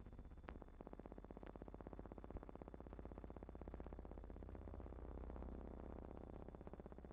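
Faint steady low hum with a fast, even buzzing flutter and a couple of faint clicks: the background noise of a silent newsreel's film transfer, with no recorded soundtrack.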